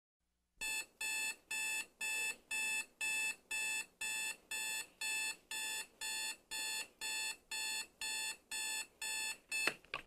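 Electric alarm clock beeping: a buzzy electronic tone repeating about twice a second, ending with a short click near the end.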